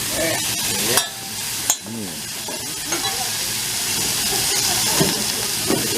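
Food sizzling on a hibachi flat-top griddle, a steady hiss, with a couple of sharp clicks about a second in.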